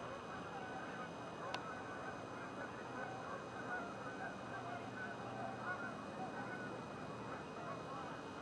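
A distant flock of Canada geese feeding, many faint honking calls overlapping in a continuous chatter. A single sharp click sounds about one and a half seconds in.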